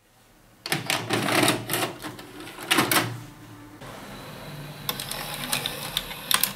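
VHS video cassette recorder's tape transport loading a cassette: a clatter of clicks and clunks from its gears and levers, then a steadier mechanical run with a faint high whine. It ends with a few sharp clicks.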